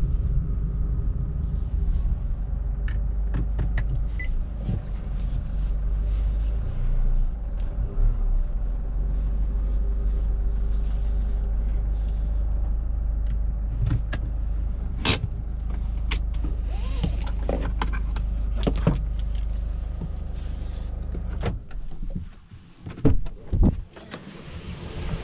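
Cabin sound of a Nissan Navara's 2.5-litre four-cylinder diesel running at low speed, with scattered clicks and knocks from the cabin. A few seconds before the end the engine hum stops, and the driver's door latch clunks as the door is opened.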